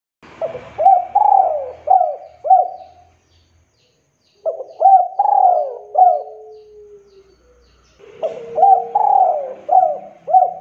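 Male spotted dove (tekukur) cooing: three calls about four seconds apart, each a quick run of four or five short coos that slide down in pitch.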